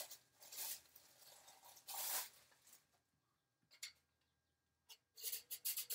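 Plastic wrapping rustling in short bursts as a Bromwell's metal flour sifter is unwrapped, then two small clicks. About five seconds in, quick rhythmic rasping starts as the sifter's crank is turned, its agitator scraping over the mesh.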